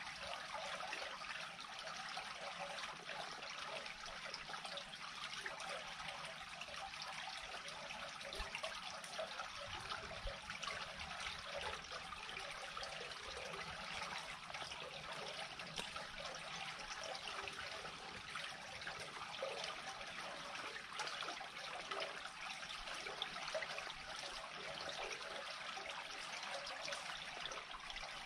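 Water draining steadily into a freshly unclogged culvert, running without a break.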